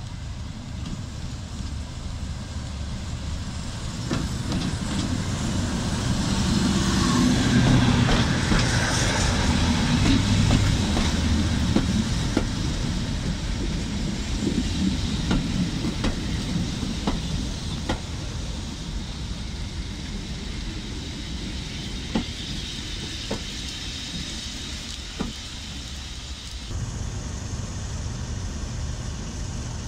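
English Electric Class 37 diesel locomotive running past with its train, its engine's rumble growing to a peak about a third of the way in. Then the coaches' wheels click over the rail joints as they go by. Near the end the sound changes abruptly to a steadier diesel engine running.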